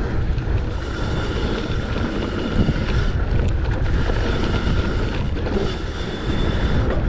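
Wind rushing over an action camera's microphone and mountain bike tyres rolling over a rough dirt trail at speed during a descent, a steady low rumble with faint clicks and rattles.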